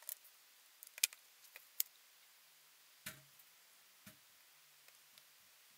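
Hands handling small plastic 7-segment LED display modules: a few sharp clicks in the first two seconds, then two soft knocks about a second apart.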